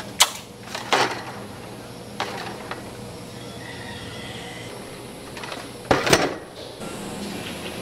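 Full glass bottles clinking and knocking in a plastic crate as it is handled, with sharp clinks at the start and about a second in. The loudest clatter comes about six seconds in, as the loaded crate is set down on a wooden bench.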